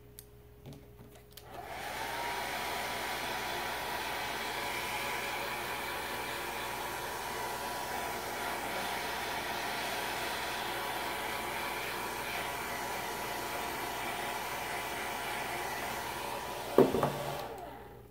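Handheld hair dryer blowing on freshly applied chalk paste to dry it: the motor spins up to a steady whine with rushing air and runs evenly for about fifteen seconds. Near the end there is a sharp click as it is switched off, and the motor winds down.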